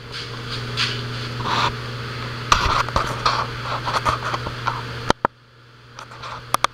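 Scratching and rubbing from a handheld camera being moved around, over a steady low hum; about five seconds in the hum cuts off abruptly, leaving a quieter background with a few clicks.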